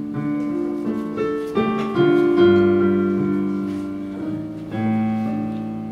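Casio digital piano played solo: several slow chords struck one after another, each left to ring and fade, the strongest about two seconds in.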